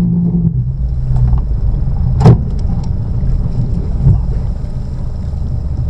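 Electrofishing boat's engine running with a steady low rumble, broken by a sharp knock about two seconds in and a smaller knock about four seconds in.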